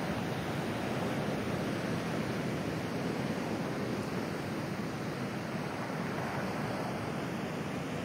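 Pacific Ocean surf breaking and washing over a pebble beach: a steady rushing wash of waves and foam.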